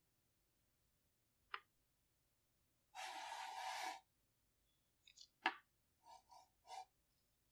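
Knife cutting through kinetic sand: a soft gritty scrape lasting about a second as the blade slides through the sand, then a sharp tap of the blade, and three short soft scrapes near the end. Otherwise near silence, with a lone click before the cut.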